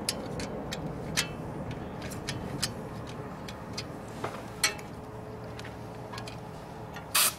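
Scattered light metallic clicks and clinks of a wrench and bolts as the engine is fastened onto the tiller frame, over a low background rumble. A short, louder hiss comes near the end.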